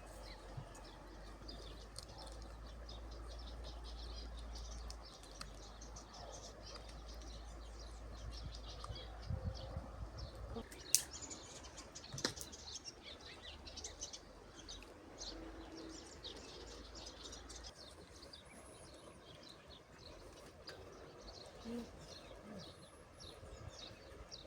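Small birds chirping over and over, with a low rumble under the first half and a sharp click about eleven seconds in.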